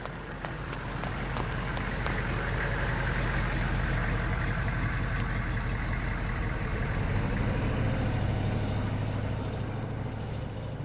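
A motor vehicle passing by: a steady low engine hum that swells over the first few seconds, stays loud through the middle and fades toward the end.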